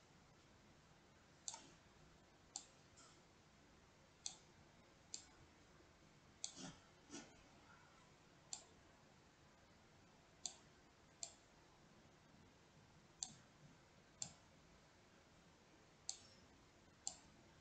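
Computer mouse clicking: single sharp clicks about a second apart, some fifteen in all, at an uneven pace.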